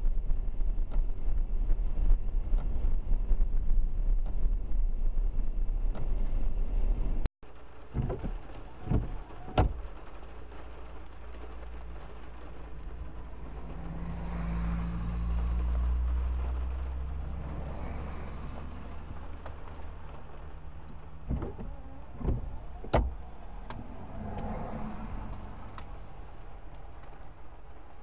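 Car driving on a wet gravel road, a steady low rumble of tyres and engine heard from inside the car. The rumble cuts off suddenly about seven seconds in. After that there is a quieter low engine hum that swells and fades in the middle, with a few short knocks.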